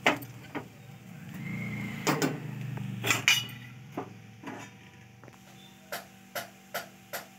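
Metal spatula knocking and scraping against a steel kadhai of sabudana khichdi, a few sharp clanks in the first half, then a run of light, even taps about two and a half a second near the end.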